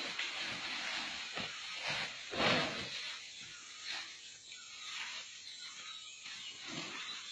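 Rustling and scraping of a baby elephant sliding down a dirt slope through grass, with louder brushes about two and a half seconds in and again at about four seconds.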